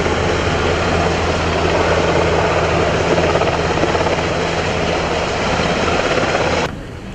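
Large helicopter in low flight overhead: a loud, steady rotor and engine noise with a low hum beneath it. It cuts off suddenly near the end.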